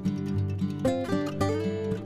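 Background music: a strummed acoustic guitar with notes changing about every half second.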